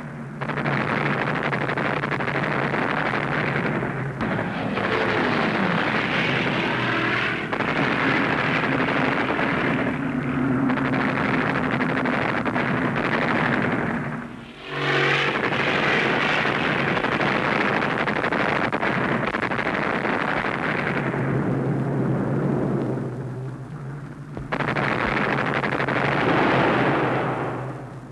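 Fighter ground-attack sound effects: a steady aircraft engine drone under long, loud stretches of cannon and machine-gun fire and explosions. The noise breaks off briefly about four, fourteen and twenty-three seconds in, and the engine note swoops down and back up about fifteen seconds in.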